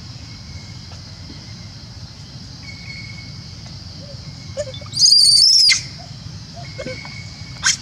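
A newborn long-tailed macaque gives one loud, high-pitched cry lasting under a second about five seconds in, then a short shrill squeak near the end: a hungry infant crying for milk from its mother.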